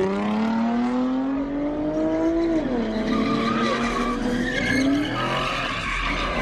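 Car engine revving hard while it spins its tyres in donuts, with tyre squeal. The engine climbs in pitch for about two and a half seconds, drops suddenly, holds, then climbs again near the end.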